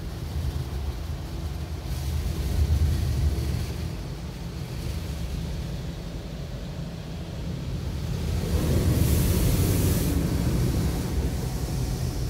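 Automatic car wash working over the car, heard from inside the cabin: a steady low rumble, with a louder hissing rush against the glass from about eight and a half seconds in that eases off near the end.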